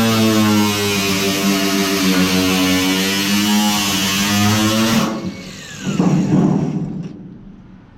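Angle grinder running with a loud, steady whine. It is switched off about five seconds in, and its pitch falls as it spins down. A short rough grinding or scraping noise follows.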